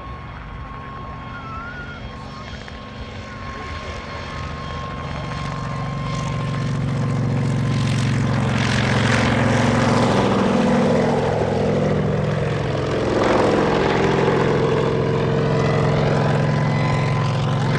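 Kamov Ka-26 helicopter's twin radial piston engines and coaxial rotors running, growing steadily louder as it comes in low. The pitch falls as it passes, about two-thirds of the way through, and it stays loud after that.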